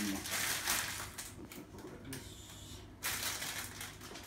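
Rustling and handling noises as food is put into a bowl by hand, dropping away for about a second in the middle before picking up again.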